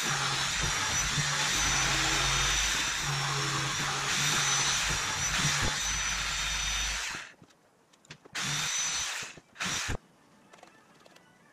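DeWalt corded jigsaw cutting through OSB sheet, running steadily. It stops about seven seconds in and runs twice more in short bursts before going quiet.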